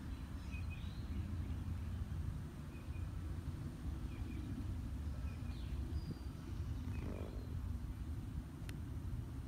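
Outdoor ambience: a steady low rumble with faint, short bird chirps now and then.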